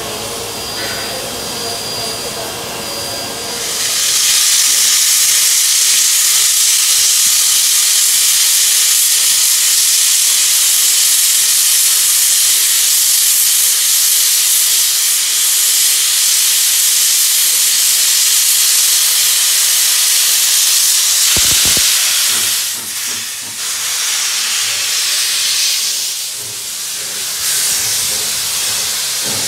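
Steam hissing loudly from NSWGR 32 class 4-6-0 steam locomotive 3265, starting about four seconds in after a steady mechanical hum. The hiss stays level for some eighteen seconds, dips briefly after a short low thump, then comes back.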